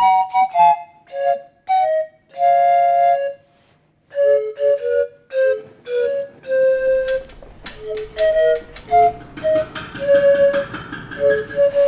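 Background music: a melody of short, separate notes on a flute-like instrument, with a brief pause about three and a half seconds in.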